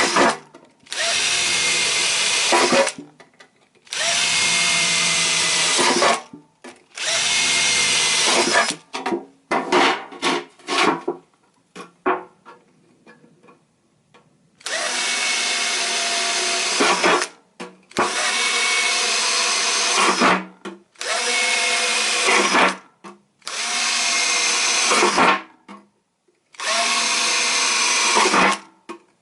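Handheld electric drill run in repeated bursts of about two seconds, each whining up to speed and stopping abruptly. Near the middle come several quick short triggers and a pause of a few seconds. It is likely drilling holes in a tin can for a small burn-can stove.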